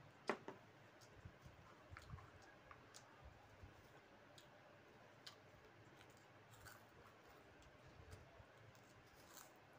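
A drinking glass set down on a table with one sharp click about a third of a second in. After it come scattered faint clicks and taps of eating by hand: fingers in a glass bowl of curry, then fried snack rings.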